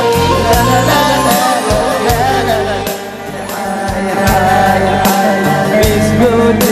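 Music: an instrumental passage of an Arabic pop song, a winding melody over a steady percussion beat, dipping briefly in loudness about three seconds in.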